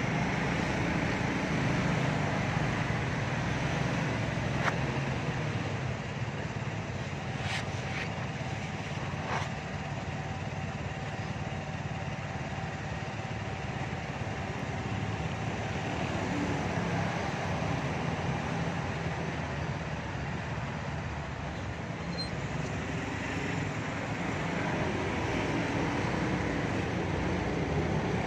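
Steady roadside traffic: motor scooters and cars passing, their engines running. A few brief clicks come about five to nine seconds in.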